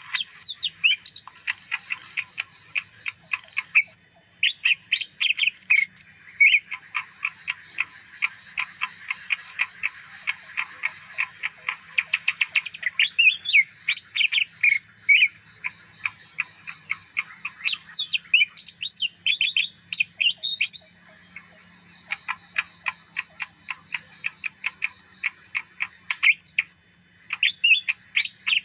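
Caged leafbird singing a long continuous song of rapid clicking notes mixed with short whistled chirps that rise and fall, pausing briefly about two-thirds of the way through.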